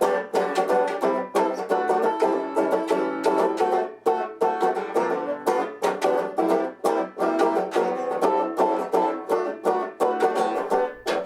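Fender Rustler six-string banjo, a guitar-tuned closed-back banjo, strummed in quick, steady chord strokes in a Dixieland style. A last chord near the end is left ringing.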